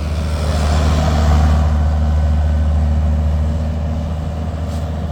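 Heavy diesel engine running steadily, with a brief swell of hissing noise in the first second or so.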